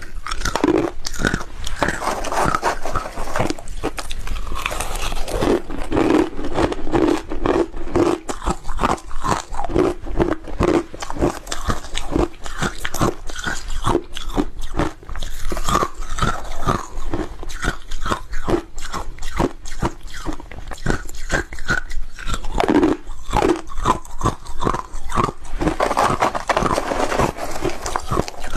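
A person biting and chewing hard chunks of ice close to a clip-on microphone: a rapid, continuous run of sharp cracks and crunches.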